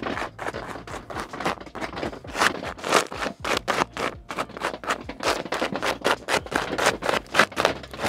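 Gloved hands rubbing and smoothing foil FSK tape onto foil-faced duct insulation: a quick run of scratchy, crinkling strokes, several a second.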